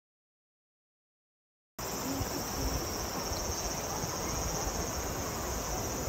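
Silence for about two seconds, then a steady chorus of summer cicadas cuts in, over the even rush of river water running through shallow rapids.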